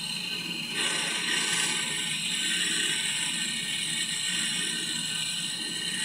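Handheld gas torch flame hissing steadily while heating copper refrigerator tubing to melt brazing solder. The hiss gets louder about a second in.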